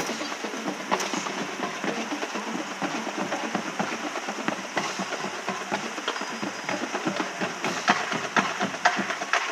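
A large group of people walking on pavement: a dense, irregular clatter of many footsteps.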